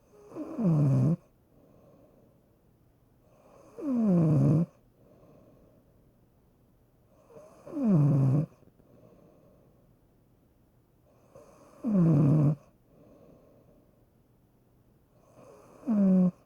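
Snoring: five loud snores, one about every four seconds, each lasting under a second and falling in pitch as it goes.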